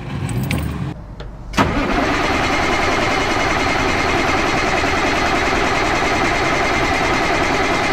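Moskvich car engine being started: a low rumble, a sharp click about a second and a half in, then the engine running steadily and loudly.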